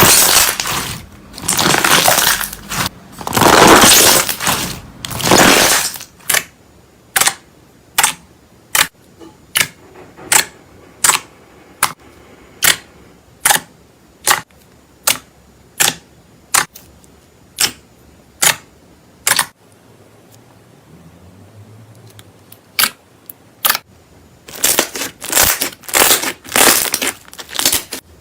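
Slime being squeezed and worked, with dense crackling and popping for several seconds, then a steady run of single sharp bubble pops a little over one a second, and crackling again near the end.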